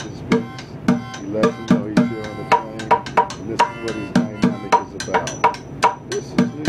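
Plastic bucket drummed with drumsticks in a quick, steady beat, with harmonica chords held over it for a couple of seconds in the middle.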